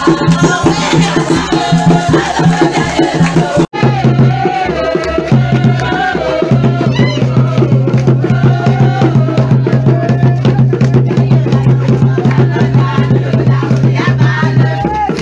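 Dance music with a steady beat and percussion, with a voice singing over it. It cuts out sharply for an instant about four seconds in, and then music with a held low bass note carries on.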